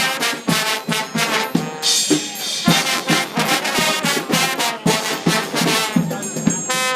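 Trombone choir playing a quick, rhythmic passage of short accented chords over steady drum beats.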